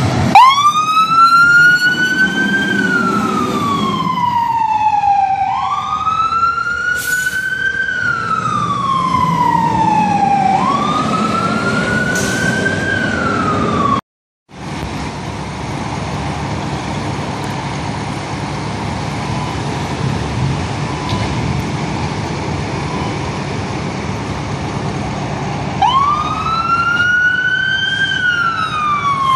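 Fire apparatus siren wailing: each cycle rises quickly and falls slowly, about every five seconds, over the low rumble of the truck's engine. After a sudden break, a quieter steady engine and traffic hum follows, and near the end the siren winds up again.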